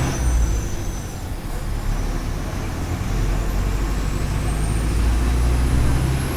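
Diesel engine of a Mercedes-Benz OF 1418 bus running, its rumble growing stronger from about halfway in. A thin high whine climbs steadily in pitch over the same stretch.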